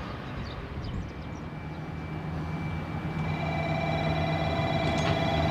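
Diesel express train running, its engine a steady low hum that grows louder as it draws nearer. High, steady whining tones join about three seconds in.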